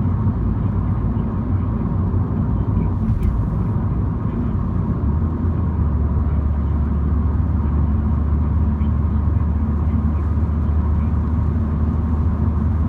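Road and engine noise of a MINI being driven: a steady low drone under tyre hiss. The drone grows stronger about five seconds in.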